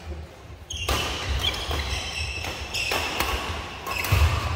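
Badminton doubles rally starting about a second in: rackets hitting the shuttlecock several times in quick succession, with shoes squeaking and footfalls on the court floor.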